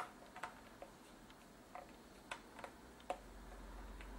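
Faint, irregular plastic clicks and taps from handling a handheld automotive scan tool and fitting its USB cable, the loudest right at the start. A low hum comes in about three seconds in.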